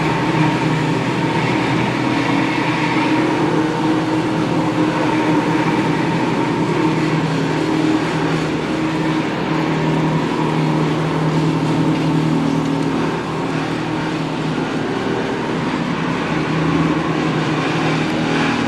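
An engine running steadily with a constant hum that holds the same pitch throughout.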